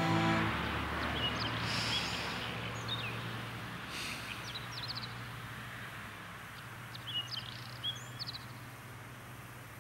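Outdoor ambience with small birds chirping now and then: short high calls, in a cluster about seven to eight and a half seconds in, over a faint steady hum. Music cuts out about half a second in, and the whole slowly fades down.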